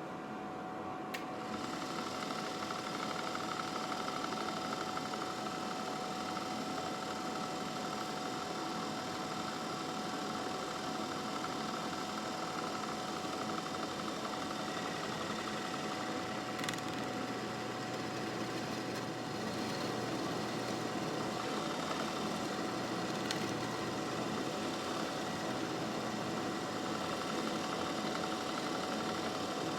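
A drill press switches on about a second in and runs steadily, boring a hinge-cup hole in a cabinet door with a Forstner bit, over the constant hum of a dust extractor.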